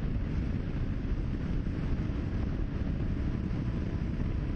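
Steady wind rush over the microphone with a Honda XL650V Transalp's V-twin engine running underneath, at road speed on the open road.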